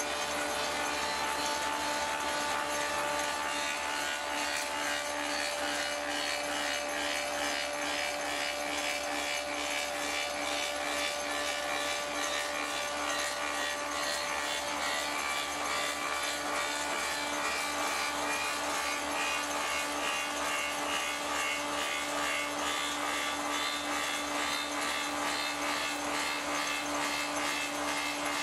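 1885 Ober copying lathe running steadily, machining a wooden axe handle, with the cutting noise of wood over a steady hum of several held tones.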